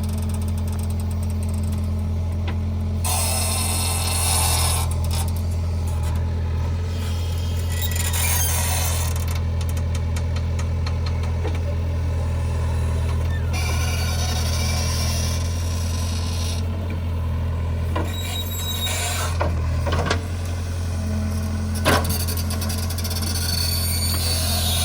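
JCB 3DX backhoe loader's diesel engine running steadily while the machine works, a continuous low drone. A few sharp knocks come in the last third.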